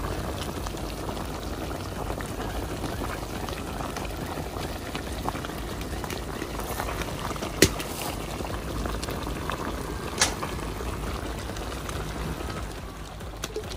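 Goat meat pieces boiling in liquid in a large aluminium wok, a steady bubbling, with two sharp clicks, one about halfway through and one a little later.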